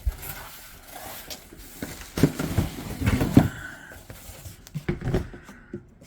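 Cardboard packaging being handled and opened by hand: irregular rustling and scraping with several knocks, the loudest a little past the middle.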